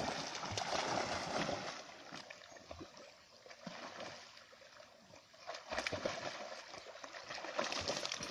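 Two dogs swimming, paddling and splashing through shallow river water; the splashing eases off in the middle and picks up again from about five and a half seconds in as they come toward the bank.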